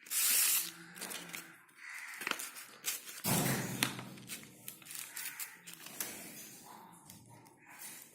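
Paper and card being handled: rustling and crinkling with many small sharp clicks, louder for a second or so about a third of the way through.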